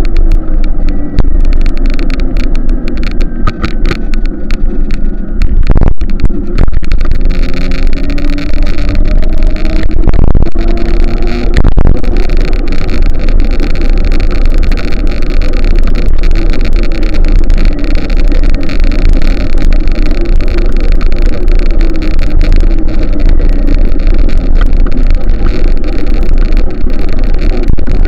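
An engine running steadily under way, its pitch rising and falling several times, over a heavy low rumble.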